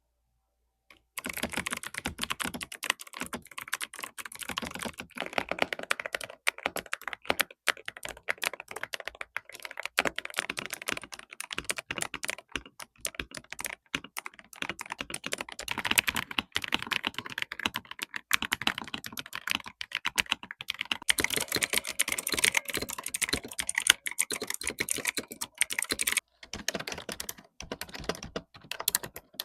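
Fast, continuous typing on mechanical keyboards, a dense run of clacking keystrokes that starts about a second in, with a short pause near the end before the typing resumes.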